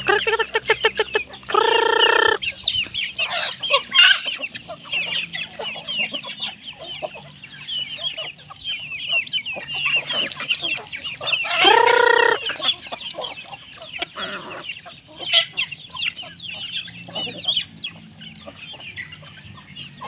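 A flock of free-range native chickens calling: constant high peeping from chicks and clucking, with two loud drawn-out calls about 2 seconds in and again about 12 seconds in.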